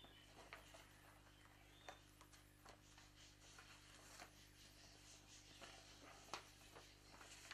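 Near silence: faint room tone with a steady low hum, a few scattered soft clicks and a couple of faint high chirps.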